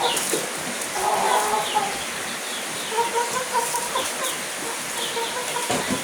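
Chickens clucking, a run of short repeated calls, with thin high chirps among them.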